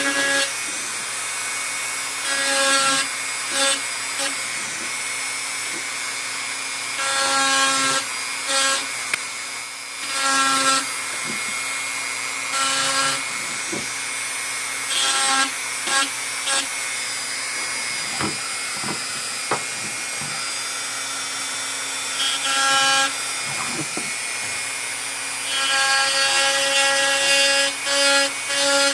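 Small high-speed rotary carving tool whining at a steady pitch as it carves an antler knife handle, cutting in and out in stretches of a few seconds, with quick repeated touches near the end.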